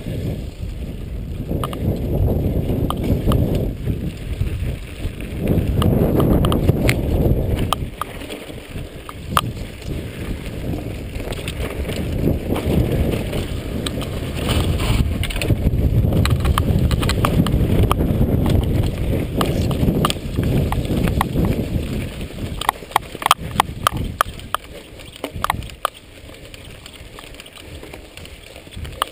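Mountain bike ridden on a rough dirt trail: wind rushing over the microphone and the tyres rumbling, with sharp rattles and clicks from the bike jolting over bumps, thickest about three-quarters of the way through.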